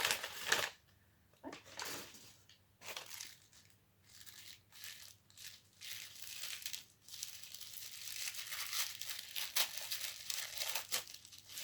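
Newspaper packing being crinkled and torn by hand in irregular bursts, with short pauses early on and busier, almost continuous rustling in the second half.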